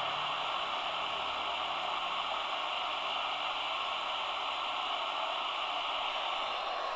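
Steady static hiss from a small portable TV's speaker while it is being tuned with no station locked in.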